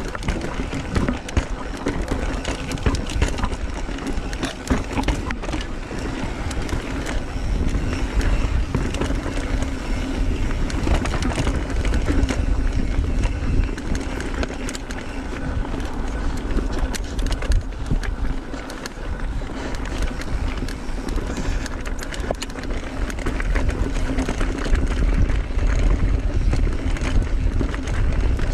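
Mountain bike ridden over rough, rocky singletrack: tyre noise on dirt and rock with constant rattling clicks from the bike, and wind rumbling on the microphone.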